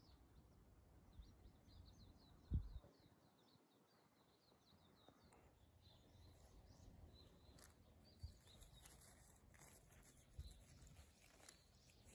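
Faint outdoor ambience: small birds twittering in a quick run of short high chirps for the first few seconds, a single low thump about two and a half seconds in, then light rustling clicks of twigs and leaves being handled.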